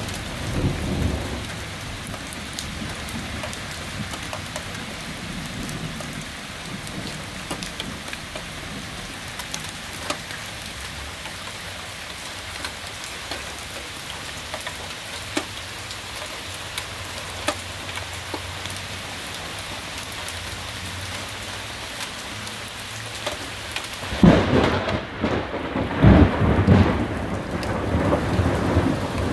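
Steady rain with scattered drops ticking close by, and thunder: a short rumble at the start, then a loud clap about 24 seconds in that rolls on in several rumbles to the end, the loudest part.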